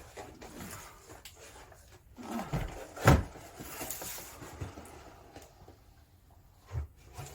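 A cardboard kit box being handled: rustling and light knocks, with a heavier thump about three seconds in and another knock near the end.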